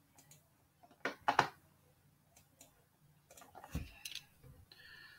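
Faint computer mouse clicks over quiet room tone: two quick clicks about a second in, then a soft low thump and a few more clicks about four seconds in.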